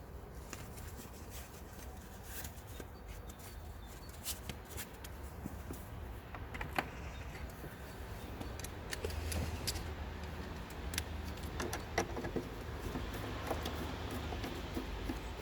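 Mercedes OM651 four-cylinder diesel idling, with short, sharp high chirps and ticks scattered irregularly over the steady hum. This is the idle chirp that is typical of OM651 engines with a two-stage turbocharger.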